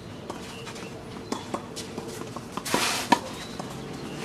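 Tennis balls being struck by rackets and bouncing on a sand-filled artificial-grass court during a doubles rally: a string of sharp pops, with a brief scraping rush just before the loudest hit about three seconds in.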